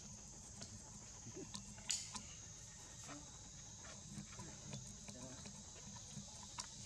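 Forest ambience: a steady high-pitched insect buzz, with scattered faint clicks and one sharper click about two seconds in.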